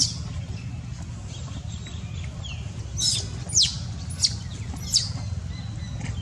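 Baby macaque giving short, shrill squeals: one at the start, then four in quick succession in the second half, each falling sharply in pitch, over a steady low rumble.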